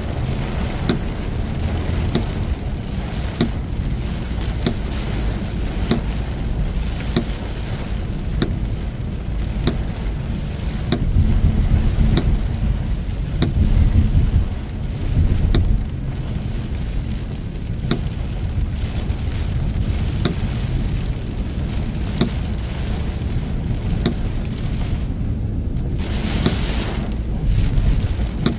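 Heavy rain on a car driving through a storm: a steady hiss of rain over a deep road rumble, with sharp ticks at a fairly even pace, a bit under two a second. About 25 seconds in, the rain hiss briefly drops out for about a second, then returns.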